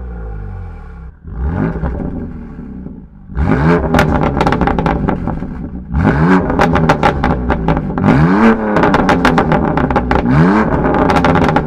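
BMW M2 Competition's S55 twin-turbo straight-six with an aftermarket exhaust, revved repeatedly: one short blip, then four bigger revs that each climb and fall back, with sharp crackles through the loud stretches.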